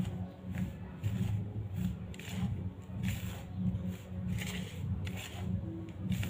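A hand stirring and rubbing a dry mix of sorghum flour, wheat flour and sugar in a bowl: soft, repeated swishes, about one or two a second. A low hum swells and fades underneath.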